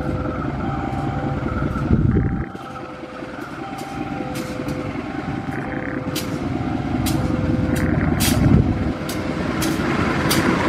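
Railway level-crossing alarm sounding its alternating two-tone ding-dong over the rumble of a KAI CC 203 diesel-electric locomotive approaching slowly. From about three seconds in, wheel clicks over rail joints join in, growing louder as the train draws near.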